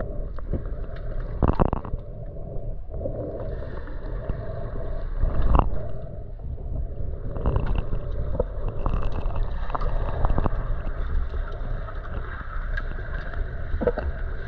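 A steady low rumble with a rushing noise over it and scattered short knocks.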